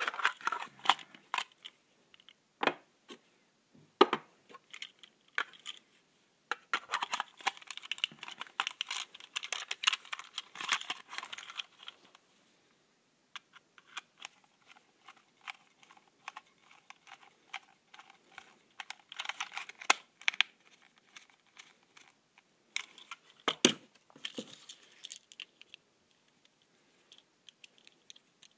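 Hands handling a plastic Tomy toy train: irregular clicks, taps and crackly rattling of small plastic parts, with a short pause partway through.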